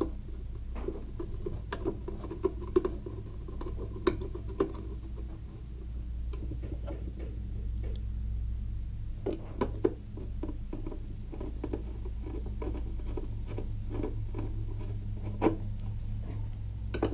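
Screwdriver turning small 6-32 flathead screws through a plastic landing-light lens into threaded inserts in a urethane housing: scattered small clicks and ticks of metal on screw and plastic, coming quicker and more evenly in the second half, over a steady low hum.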